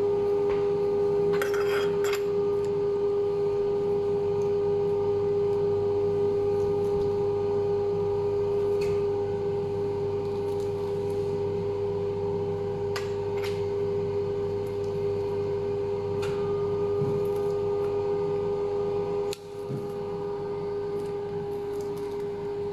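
Steady hum of kitchen machinery with a strong, even tone. Over it come a few light clicks, some in a quick cluster near the start, from a small steel round cutter being pressed into sugar-dusted croustillant on a perforated metal baking tray.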